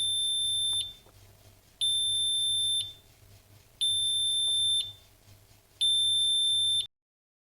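Countdown timer's time's-up alarm beeping: four long, high, steady beeps of about a second each, two seconds apart. The last one cuts off abruptly.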